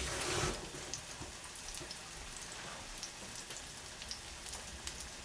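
Chicken breast steaks frying in a pan: a faint, steady crackle of small pops and spits. A water tap runs for about the first half second.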